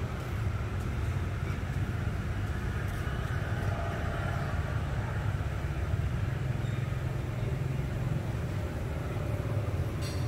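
Steady low rumble of outdoor background noise, with no clear single event.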